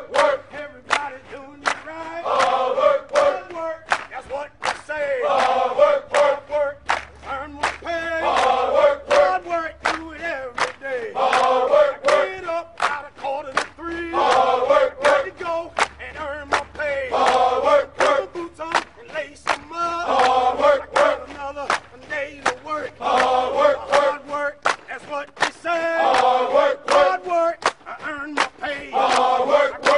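Music: a song whose group of voices chants a short phrase about every three seconds over a steady drum beat.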